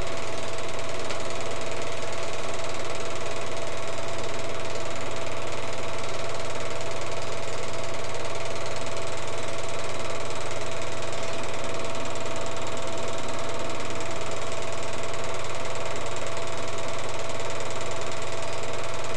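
Small film projector running steadily: an even mechanical whir with a constant hum and a steady high tone that never changes.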